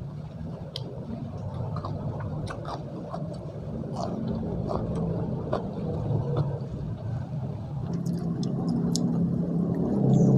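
Close-miked chewing while eating, with many short sharp mouth clicks, over a steady low rumble.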